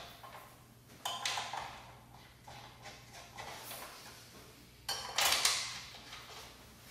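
Clatter and scraping of a plastic radar bracket and small bolts being fitted by hand to a car's front end, in a few short bursts, the loudest about five seconds in.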